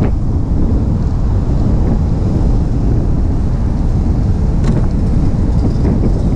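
Steady wind rumble on the microphone of a camera on a moving motorcycle, mixed with the bike's road and engine noise as it rides along.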